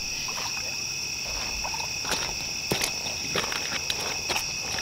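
Steady high-pitched chorus of night insects trilling, with scattered short knocks and rustles close by.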